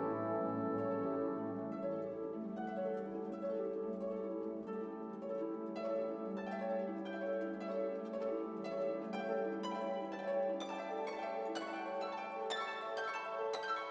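Instrumental background music of plucked string notes over sustained held tones; the plucked notes come thicker and brighter in the second half.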